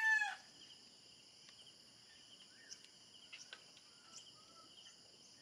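The last of a rooster's crow cuts off just after the start, leaving a steady chirring of crickets or other insects. Over it come a few faint clicks as a drone remote controller is handled.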